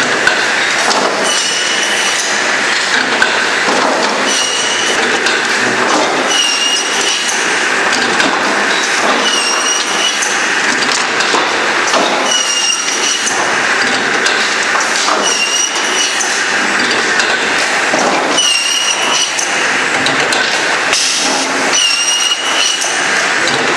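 Cursal TRV 1600L automatic firewood cross-cut saw running, its 700 mm circular blade cutting a bundle of wood slabs into firewood lengths. It goes in a steady rhythm, with a short high squeal about every 1.3 seconds over continuous machine and wood clatter.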